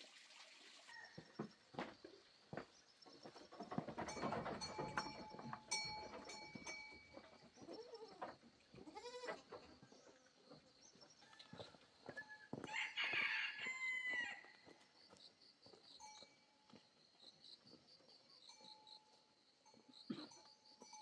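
Livestock calling now and then, the loudest call about two-thirds of the way through, over faint steady high-pitched background tones.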